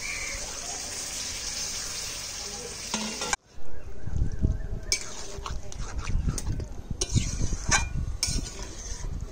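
Yogurt-marinated chicken pieces sizzling steadily in hot oil and spiced masala in a pan. About three and a half seconds in, the sound breaks off suddenly, then a spatula scrapes and knocks against the pan as the meat is stirred and fried in the masala, over a softer sizzle.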